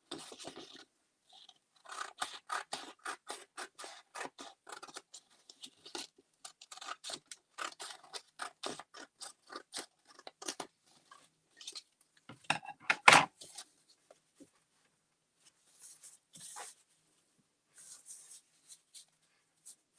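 Scissors snipping through paper in a quick run of short cuts, trimming a collage piece. A louder paper rustle comes about two-thirds of the way through, then a few fainter sounds of paper being handled near the end.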